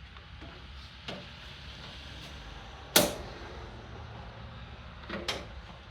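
Hard knocks of a riding-mower battery being set down into its tray: one sharp, loud clunk about three seconds in, with lighter knocks about a second in and near the end.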